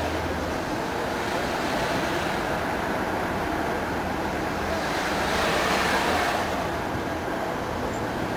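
Road noise of a car driving slowly, heard from inside the car: a steady rush of tyres and engine that swells louder for a second or so just past the middle.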